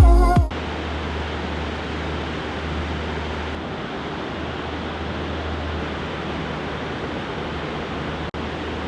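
Background music cuts off about half a second in, giving way to a steady rushing noise with no beat or tone, broken by a brief dropout near the end.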